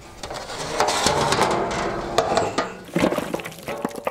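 Raw chicken wings being tipped into a large metal pan: a dense clatter of many small impacts and slaps, starting about a second in and thinning out near the end.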